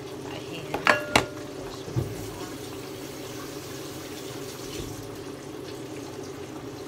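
Steady hum of a kitchen range-hood blower over the hiss of fish frying in oil. Two sharp ringing clinks of dishware come about a second in, then a duller knock a second later.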